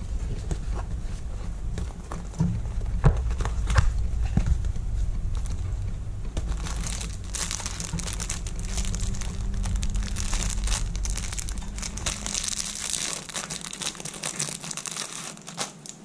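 Handling of a paper box of disposable face masks, with scattered taps and scrapes, then the thin plastic wrapper around the pack of masks crinkling steadily from about six seconds in as it is pulled open.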